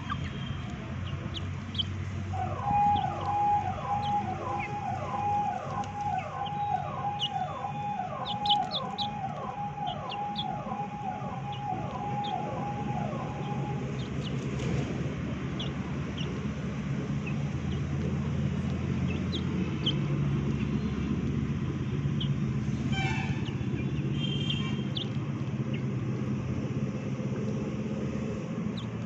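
Chickens pecking rice from a steel bowl, their beaks tapping the metal in short scattered clicks over a low steady rumble. From about two seconds in until about halfway, a steady high tone with a falling chirp repeating about twice a second sounds over them.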